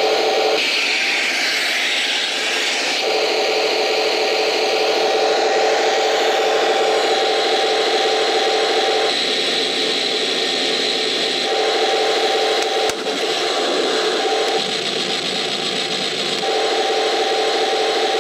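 Taigen 1:16 Tiger 1 RC tank driving and turning on paving tiles: a steady mechanical whir from its drive motors and gearbox with its tracks grinding over the stones. The sound shifts in character several times as the tank changes direction, with one sharp click about two-thirds of the way through.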